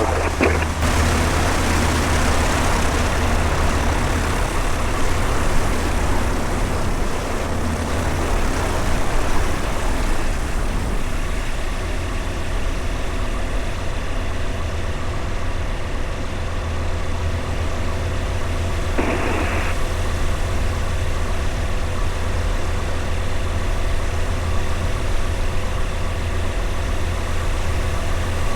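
Tecnam light aircraft's piston engine running steadily with a deep, even drone, plus a brief short burst of sound about two-thirds of the way through.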